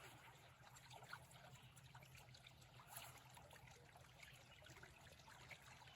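Faint trickle of flowing river water.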